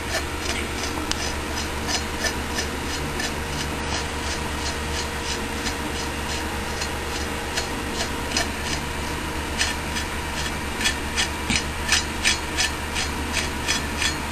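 Threaded headset cup being unscrewed by hand off a BMX fork's steerer: a rubbing, rasping turning with regular light clicks about three a second, which grow louder over the last few seconds.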